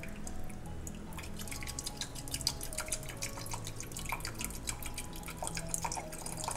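Vegetable broth trickling from a plastic pitcher into a hot pot of orzo: steady dripping and splashing, with the broth bubbling in the pot.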